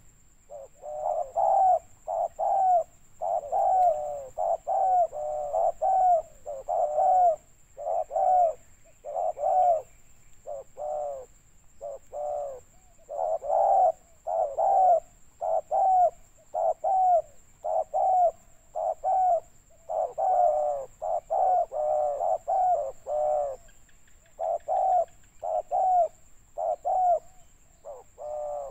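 Spotted doves cooing over and over: short rolling coo phrases follow one another closely, with brief pauses between runs.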